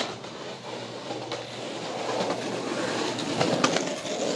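Skateboard wheels rolling over concrete, the rumble building as the board comes closer, with a few sharp clicks as the wheels cross joints in the paving.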